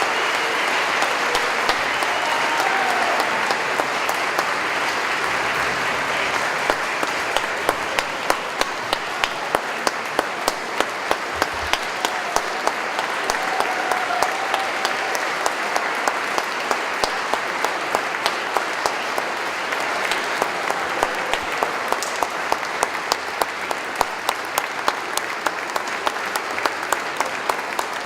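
Audience applauding. About seven seconds in, the clapping falls into a steady beat of about two claps a second over the general applause.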